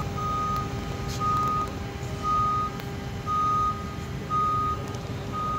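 Motion warning beeper on a Mototok Spacer electric towbarless aircraft tug, giving single high beeps about once a second. A steady hum runs underneath.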